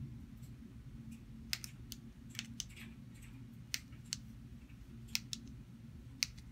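Buttons on a car remote key fob clicking under a thumb, pressed over and over: about nine sharp clicks, several coming in quick pairs.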